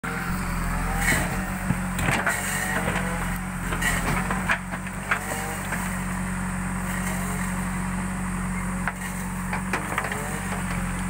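JCB backhoe loader's diesel engine running steadily as the backhoe digs, with repeated knocks and clatter of the bucket striking soil and stones.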